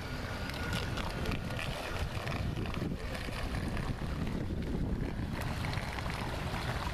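Heavy wind rumble on the microphone over an even hiss and scattered crackle of water as a small radio-controlled speedboat runs out across choppy water. No clear motor whine stands out.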